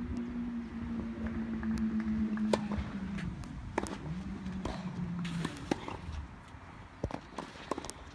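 Tennis rally on a clay court: sharp pops of rackets striking the ball and the ball bouncing, irregularly about once a second, the loudest about two and a half seconds in. Under them a steady low drone runs for the first three seconds and comes back, rising, for another second and a half.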